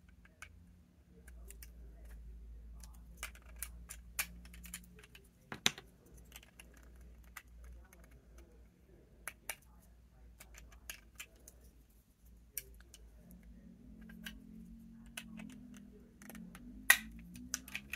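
Small plastic Lego pieces clicking and snapping as they are worked apart by hand, in scattered sharp clicks, with a louder snap about a third of the way in and another near the end. A faint low hum runs underneath.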